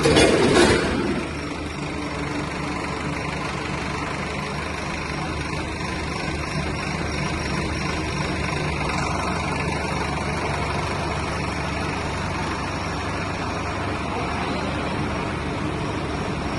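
Tractor engine running steadily, louder in the first second.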